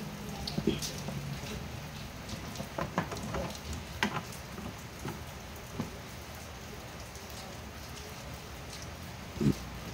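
Steady rain falling, an even hiss with a few sharp clicks and taps scattered through it, the loudest one near the end.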